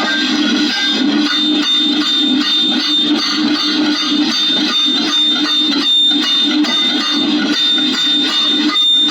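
Dense, continuous run of rapid clicks, loud and steady, over a thin high tone. It breaks off briefly about six seconds in and again near the end.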